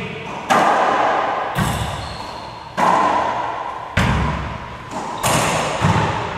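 Racquetball rally: about six sharp cracks of racquets hitting the ball and the ball smacking off the court walls, roughly a second apart, each ringing on in the echo of the enclosed court.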